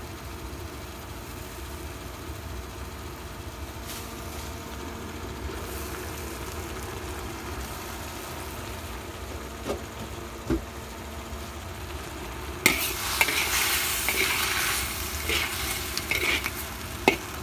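Beef and bitter melon (ampalaya) sizzling in a pan, loud from about two-thirds of the way in as the food is stirred, with clinks of a utensil against the pan. A steady low hum runs underneath.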